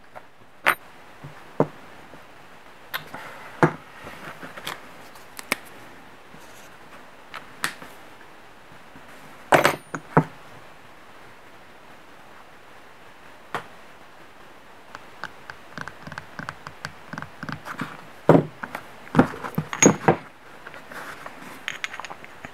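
Hand handling of two-stroke intake parts, a plastic reed valve block and metal pieces, on a workbench: scattered clicks and light knocks. A cluster of louder knocks comes about ten seconds in, a run of quick light clicks starts about fifteen seconds in, and more louder knocks come near the end.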